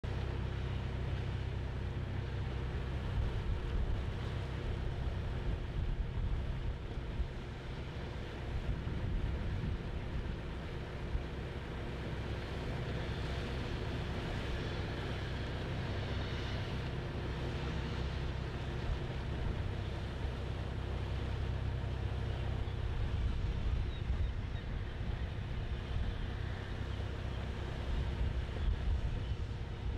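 Boat engine running steadily, a low hum, with a hiss of wind and water around the hull.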